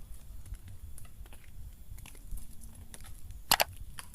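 Light scattered clicks and taps over a low rumble, with a sharper double knock about three and a half seconds in.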